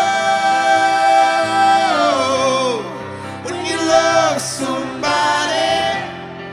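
Live pop ballad singing: long wordless held notes sung into a microphone, several of them sliding down in pitch at their ends, over soft, steady accompaniment.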